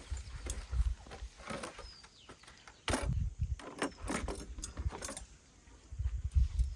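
A run of sharp clicks and crackling rustles, densest a few seconds in, with low thumps now and then.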